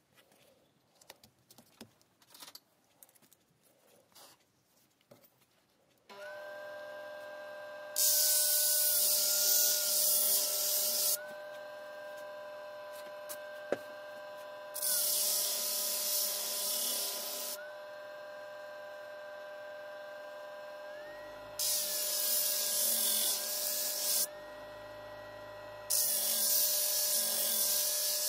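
Light handling noises as an 80-grit sanding disc is fitted. About six seconds in, a benchtop disc sander starts and runs with a steady motor whine. Four times, for two to three seconds each, the steel of a Damascus chef knife is pressed to the spinning disc, giving a loud hissing grind as metal is taken off the spine side to reshape a broken tip.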